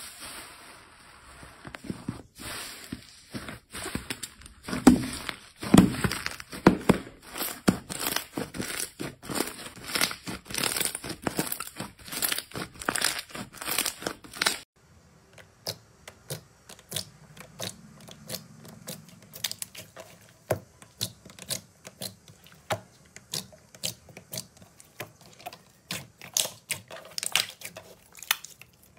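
Slime being squeezed, pressed and stretched by hand, giving a dense run of sharp pops and crackles. About halfway through it cuts to a quieter stretch of sparse soft clicks as a different slime is worked.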